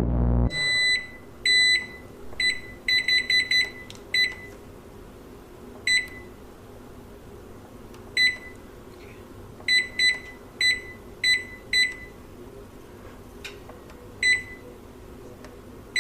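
Microwave oven's running hum cuts off about half a second in, followed by a string of short, high electronic beeps at uneven intervals, single and in quick runs, like its keypad buttons being pressed.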